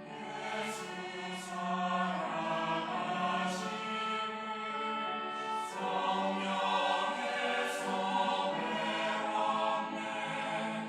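Church choir singing an anthem in Korean, the voices sustaining sung notes with sharp "s" consonants coming through several times.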